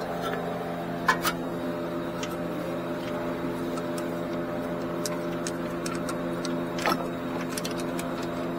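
Scattered light metallic clicks and a few sharper clinks from hand tools and bolts being worked during axle reassembly, over a steady machine hum. Two louder knocks come about a second in, and another near the end.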